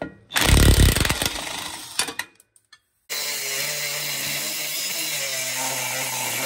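A loud mechanical burst fading over about two seconds. Then, from about three seconds in, a cordless DeWalt angle grinder runs steadily as it cuts through the seized bolts on the catalytic converter flex-pipe flange.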